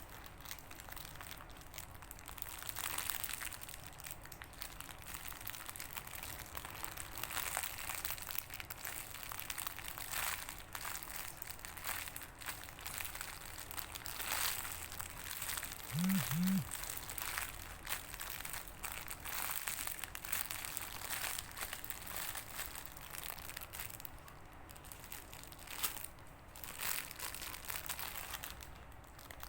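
Soft crinkling and rustling as squishy toys are handled and squeezed, going on unevenly in small crackles. About halfway through, two short low tones sound in quick succession.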